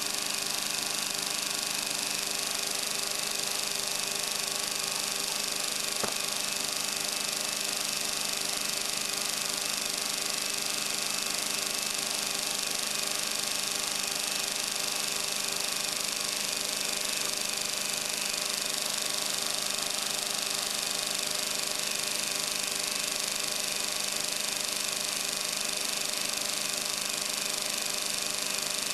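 Steady hum and whine of the CR-Kromrey converter's two motor-driven rotors spinning at constant speed, with a single sharp click about six seconds in.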